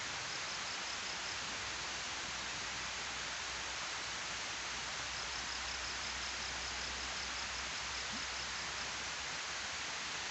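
Water rushing steadily down a concrete weir spillway, an even unbroken rush. A faint run of rapid, evenly spaced high pulses sounds briefly near the start and again for several seconds in the second half.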